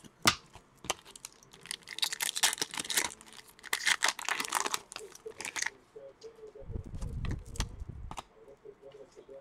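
Trading cards and a foil card-pack wrapper handled by hand, crinkling and rustling with quick crackles. A dull low rumble follows about two-thirds of the way in.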